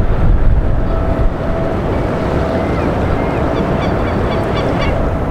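Steady low rumble of wind on the microphone over harbour water, with a faint steady hum. From about two seconds in, birds call in a quick run of short, high notes, several a second, before falling quiet near the end.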